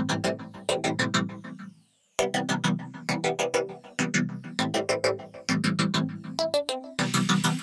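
Background music with a steady beat, dropping out briefly about two seconds in.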